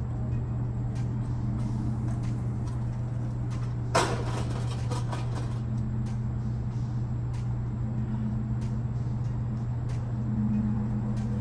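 A microwave oven thrown to the ground makes a single loud crash about four seconds in, with a short rattling trail. A steady low hum runs underneath.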